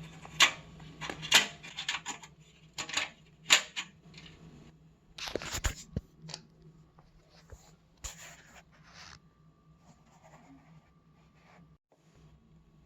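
Sheet-metal I/O shield being pressed into the rear opening of a PC case: a string of sharp metallic clicks and snaps over the first six seconds, a brief scrape, then fainter handling.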